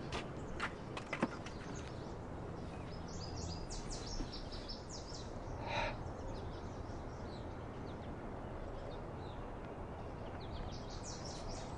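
Small birds twittering in quick high chirps, in two spells, about three seconds in and again near the end, over steady outdoor background noise. A few sharp clicks in the first second or so.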